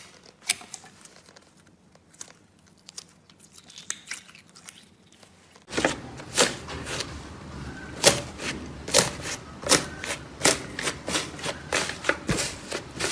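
Hand-played slime: a quiet stretch of soft pressing with a few faint clicks, then, about halfway, a much louder run of sharp crackles and pops as fingers poke and squish through a thin drawn-on layer over fluffy white slime, breaking it up.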